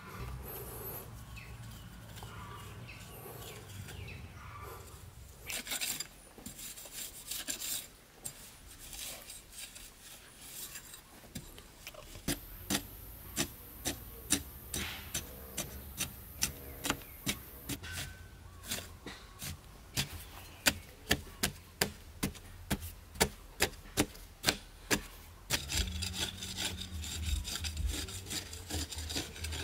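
A hand tool working wood in a run of regular back-and-forth strokes, about two a second, with scattered scraping before the run begins.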